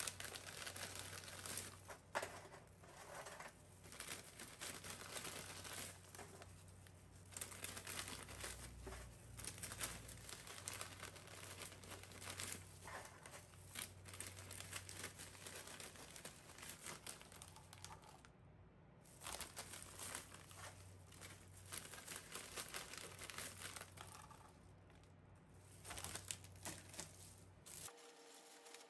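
Clear plastic bag crinkling in stretches with short pauses as a hand fills it with pieces of crisp baked chiffon cake rusk.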